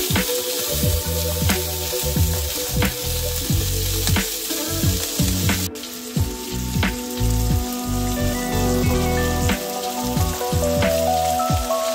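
Food sizzling as it fries in a pan, with background music playing over it.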